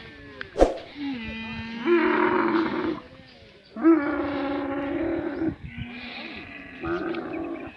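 Male dromedary camel bellowing with its head raised and mouth open: three long, loud calls about two, four and seven seconds in, the middle one the longest. A sharp click sounds about half a second in.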